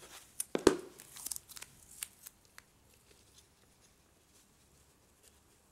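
Printed paper and double-sided tape being handled: a few sharp crackling rustles and clicks in the first two and a half seconds, the loudest a little over half a second in.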